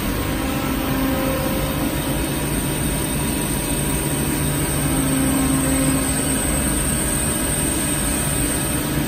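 EHT EHPS 20-60 hydraulic press brake running, its hydraulic pump humming steadily as the upper beam slowly lowers under CNC control. There is also a faint high steady whine.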